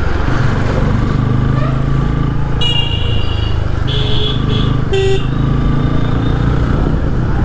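Bajaj Pulsar N160's single-cylinder engine running at low speed in slow street traffic, with three short vehicle-horn toots about three, four and five seconds in.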